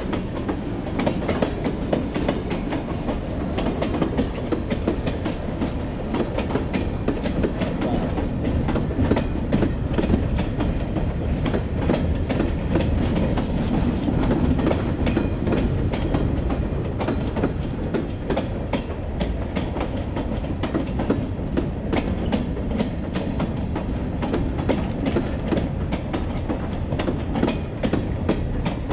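Freight train cars (covered hoppers and tank cars) rolling past close by: a steady rumble of steel wheels on rail with frequent clicks as the wheels cross rail joints.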